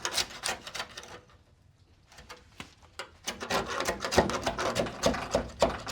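Putty knife scraping old undercoating off a 1967 Volkswagen chassis in quick, repeated strokes. The scraping stops after about a second and starts again about three seconds in.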